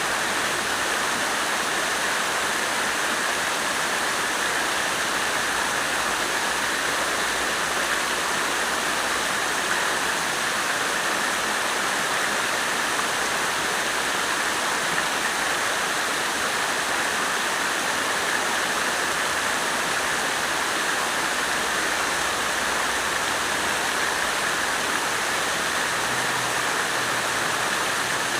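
Water fountain splashing: a steady, unbroken rush of falling water.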